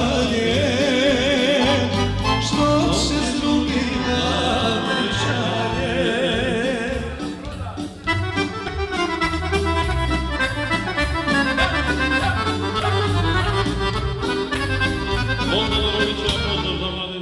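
Live folk dance music from an electronic arranger keyboard, a fast, ornamented accordion-like melody over a steady bass beat. The music dips briefly about halfway through.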